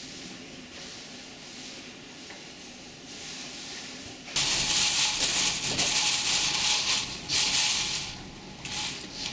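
Hurricane-force wind with a steady hiss, jumping suddenly much louder about four seconds in and then surging and easing in gusts.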